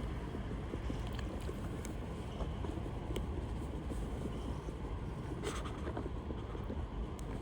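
Steady low rumble of wind buffeting the microphone, with a few faint ticks and a short hiss about five and a half seconds in.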